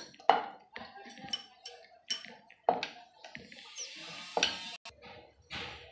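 Wooden rolling pin working a stuffed dough ball on a wooden board, with several sharp wood-on-wood knocks and a soft rolling rub between them.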